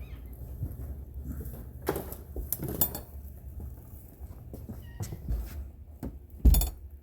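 A few sharp knocks, then one loud thump about six and a half seconds in, over a steady low rumble.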